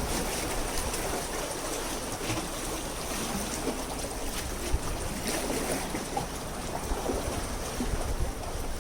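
Seawater lapping and sloshing, a steady noisy wash with a few faint clicks.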